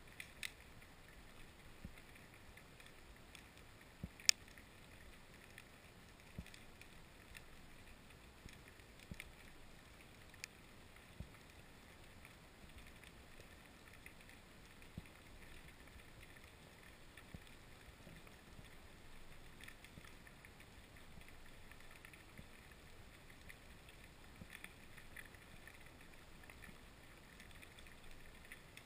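Faint underwater ambience picked up inside a camera's waterproof housing: a soft steady hiss with scattered sharp clicks and ticks, one louder click about four seconds in.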